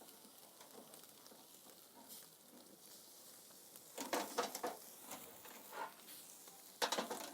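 Lamb kebab skewers sizzling softly over hot charcoal as the meat sears. A couple of brief louder noises come about four and about seven seconds in.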